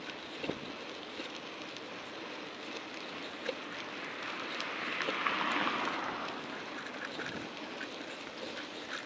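Steady wind and road noise from riding a bicycle through city streets at night, with a hiss that swells about five seconds in and fades again.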